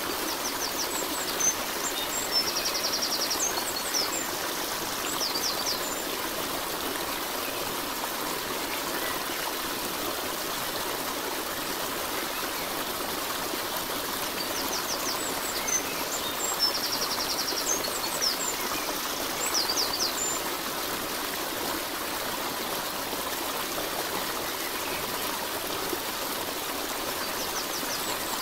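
Steady sound of a running stream, with short bird chirps that come back at about 13-second intervals, the same calls each time.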